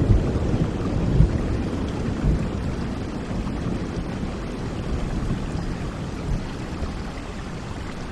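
Steady rain, with the low rumble of thunder dying away over the first couple of seconds.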